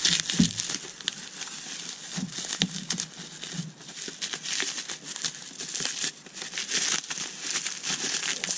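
Bubble wrap crinkling and rustling in irregular crackles as it is handled and pulled off a boxed figure.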